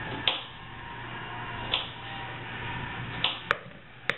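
A spoon tapping against the rim of a plastic mixing bowl while avocado flesh is scooped from its skin: about five sharp, separate taps, over a low steady hum.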